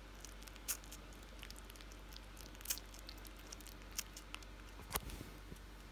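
Kittens suckling at their mother cat: faint, irregular little wet clicks and smacks, a few louder than the rest.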